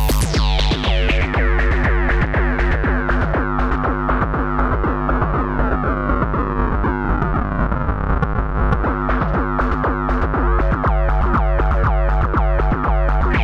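Electronic beat loop run through a bit-crushing effect: the bright top end sweeps down within the first two seconds, leaving a duller, gritty sound, with a falling pitch glide in the middle and the full brightness sweeping back in at the very end.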